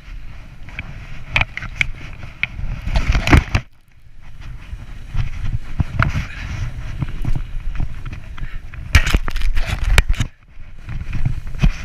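Snowboard sliding and carving down over chopped-up snow, its base and edges scraping, with several sharp knocks and clatters. It drops away briefly twice, about four seconds in and near the end.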